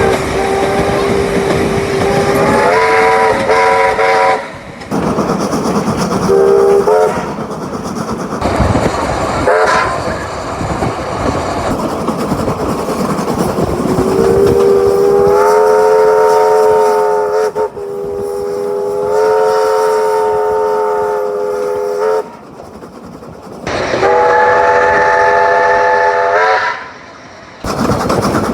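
Standard New Zealand Government Railways steam chime whistle on locomotive A428, blown in about six blasts, some long and some short, each building from one low note into a melodious chord of several notes as the valve opens. Steam hiss fills the gaps between blasts.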